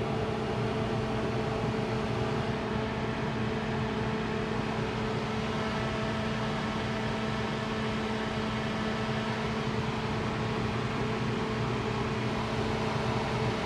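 A fan running steadily: an even whooshing noise with a low hum of a few steady tones, unchanging throughout.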